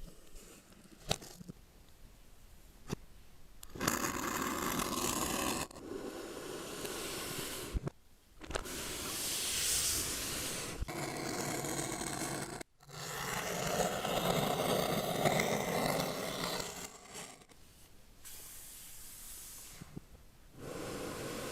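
Unboxing handling sounds: scraping and rubbing of packaging and the keyboard case, with a few light clicks in the first seconds, then long stretches of rustling and scraping broken by short pauses.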